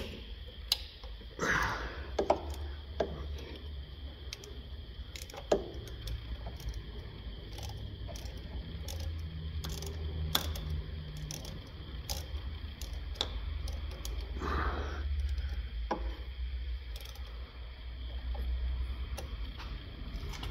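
Hand work with tools on the underside of a car: scattered sharp clicks and knocks of a tool and metal parts being handled, with a few short scrapes, over a steady low hum.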